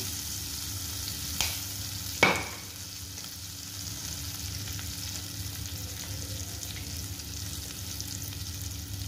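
Oil sizzling steadily in a kadhai as cumin seeds, chopped green chilli and turmeric powder fry in it, the tadka for the potato filling. There is a light knock about a second and a half in, and a louder, sharp knock with a brief ring just after two seconds.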